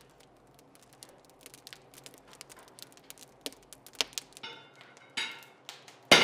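Hammer striking steel: light, quick ticks at first, then a few heavier blows that ring like struck metal, the loudest near the end.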